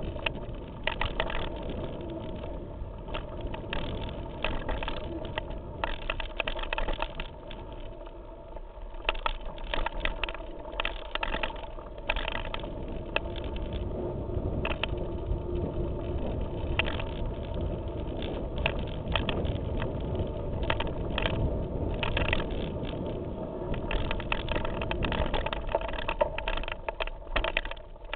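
Mountain bike rolling down a rocky, gravelly trail, heard through a handlebar-mounted camera: a steady rumble of tyres on stones and dirt with frequent irregular knocks and rattles from the bike jolting over rocks.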